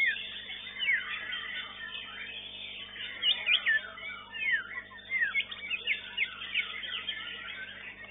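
White-rumped shama (murai batu) singing: quick whistled notes that sweep up and down, heard over a dense chorus of many other songbirds singing at once.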